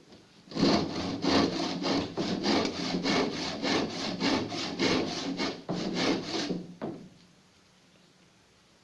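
Hand saw cutting wood in quick, even back-and-forth strokes, about three a second, for some six seconds, with one last stroke just after it stops.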